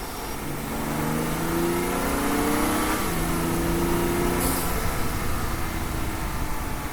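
BMW 335i's N55 turbocharged inline-six accelerating on its stock exhaust: the engine note climbs, drops sharply at an upshift about three seconds in, climbs again, then eases off about a second and a half later.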